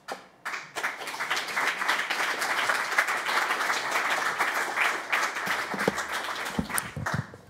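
Audience applauding, dense clapping that starts right away and dies down over the last couple of seconds.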